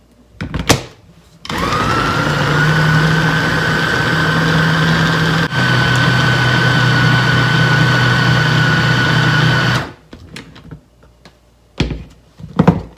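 Small press-top electric food processor running steadily for about eight seconds, blending fish paste; the whine rises as the blade spins up, dips briefly about halfway, then cuts off. Short clunks as the motor unit is set on the bowl near the start and lifted off near the end.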